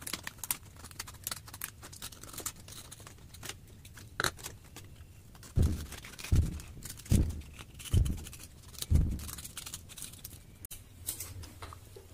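Scissors snipping around a clear plastic sheet laminated with polarizer film, with many small crisp clicks and crackles of the cutting and handling. In the middle come five dull thumps, about one every 0.8 s, which are the loudest sounds.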